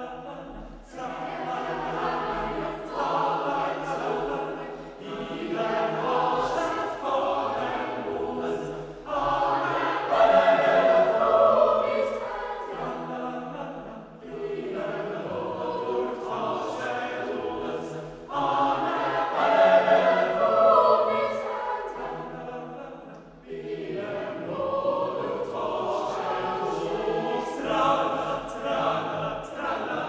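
Boys' choir with treble voices and older changed voices singing a traditional Swiss folk song unaccompanied, in phrases that swell louder twice.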